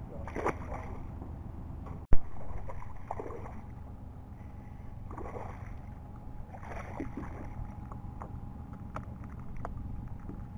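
Hooked smallmouth bass splashing at the water's surface as it is fought to the boat, several splashes a second or two apart over a steady low rumble. A single sharp knock about two seconds in is the loudest sound.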